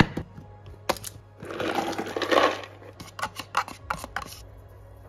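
Walnut pieces tipped from a plastic box into a stainless-steel grinder jar, rattling and clinking against the metal for about a second and a half, with sharp knocks and taps before and after.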